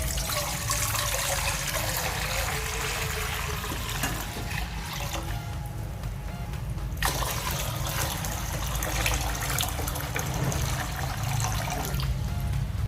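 Water pouring in two spells, broken briefly about halfway, over background music.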